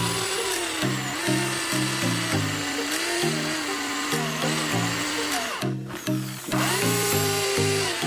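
Electric drill running under load as it bores through a plastic PVC pipe cap, its motor whine dipping and rising. The whine stops briefly a little before three-quarters of the way through and then starts again. Background music with a steady bass pattern plays throughout.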